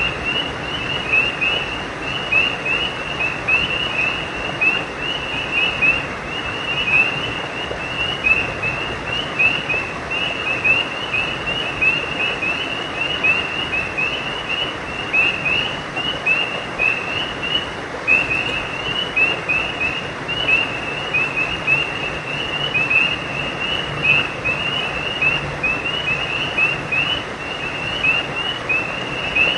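A chorus of frogs calling at night, a continuous run of short, high chirps, several a second, over a steady hiss.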